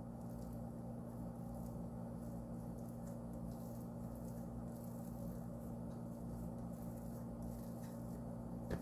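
Quiet room tone with a steady low electrical hum, and faint soft rustling of hands rolling up a sheet of dough on a wooden board.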